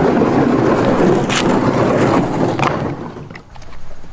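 Handling noise close to the microphone inside a canoe: a loud, rough rustling and scraping of gear, with three sharp knocks, the loudest about a second and a half in. It dies down over the last second.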